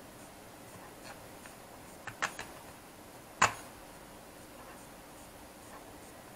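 A few small plastic clicks and taps from handling the opened shell of a drone remote controller while an antenna connector is fitted into it: a quick cluster of three clicks about two seconds in, then one sharp, louder click about a second later.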